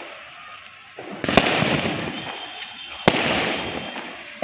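Aerial firework shells bursting overhead: two sharp bangs about a second and a half apart, each followed by a fading crackle.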